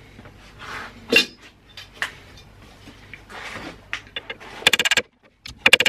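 Metal clinking and rattling as a folded steel strip is set on a metal dolly, with one sharp clink about a second in. Near the end a planishing hammer starts up: a rapid, even run of metal-on-metal strokes at about a dozen a second, stopping briefly and starting again. The steel lip is being planished metal to metal, which over-stretches it and bows it.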